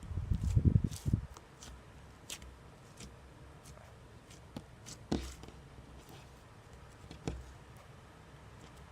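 Cloud slime being handled: heavy low squishing for the first second or so, then scattered small crackles and clicks, the sharpest about five seconds in.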